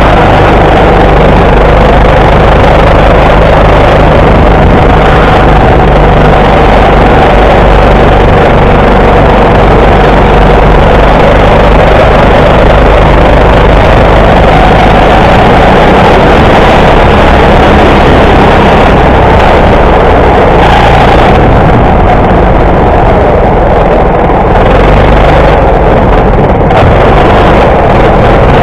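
Indoor rental go-kart's engine running loud and steady as the kart is driven at speed, picked up close by a camera mounted on the kart.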